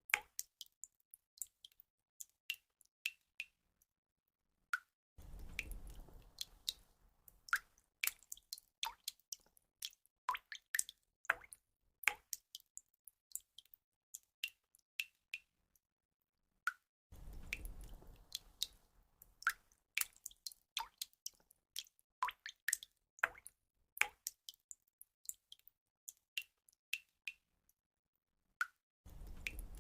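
Water drops falling: many short, sharp drips and plops at an uneven pace, some bright and ringing. Stretches of low rushing water sound come in about five seconds in, again after about seventeen seconds and near the end, and the whole pattern repeats about every twelve seconds.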